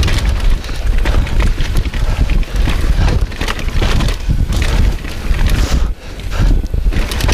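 Mountain bike descending a dirt trail at speed: wind buffeting the microphone and tyres rumbling over the ground. The bike rattles with frequent clicks and knocks over bumps. It goes briefly quieter about six seconds in.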